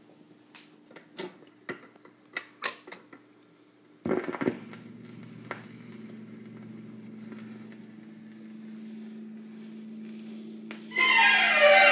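1954 RCA HY-4 45 rpm record changer working: a few light clicks, then a loud clunk about four seconds in as the changer cycles, followed by a steady motor hum. Near the end a click, and the record starts playing music.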